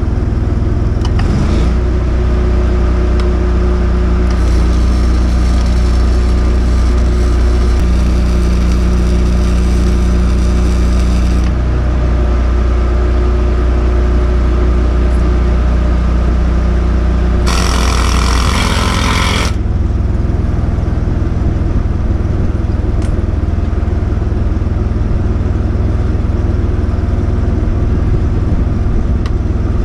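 Lincoln engine-driven welder running steadily close by. Its engine note steps up about one and a half seconds in and drops back around eighteen seconds in. Over it a hiss runs for several seconds, and a short, louder hiss comes just before the engine settles.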